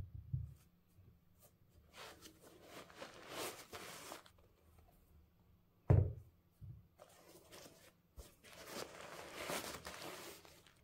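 Paper stuffing rustling and crinkling as it is pulled out of a leather sneaker, in two stretches. There is a dull thump at the start and a louder one about six seconds in as the shoe is handled on the table.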